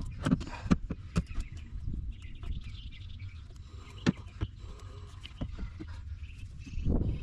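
Scattered knocks and clicks from plastic pipe fittings being handled and pushed together, over a steady low rumble.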